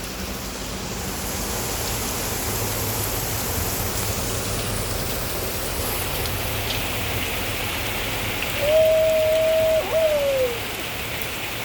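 Steady heavy rain. About nine seconds in, a clear single-pitched tone holds for about a second, then a second short tone slides down in pitch.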